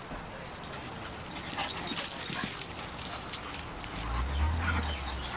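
Dogs playing and tussling: brief dog sounds over scattered scuffs and clicks of paws on dirt and wood chips. A low rumble comes in about four seconds in.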